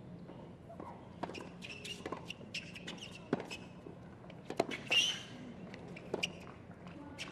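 Tennis ball being bounced on a hard court before a serve, then the serve and a rally: a series of sharp racket strikes and ball bounces. A louder sharp sound comes about five seconds in.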